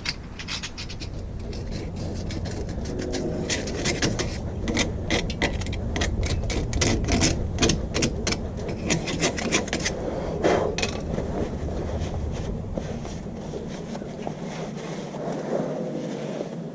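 Metal tools and parts clicking, clinking and scraping in quick, irregular strokes during hand work on a Jeep's front wheel hub and axle. The strokes are densest in the first ten seconds or so, over a low rumble that falls away about 13 seconds in.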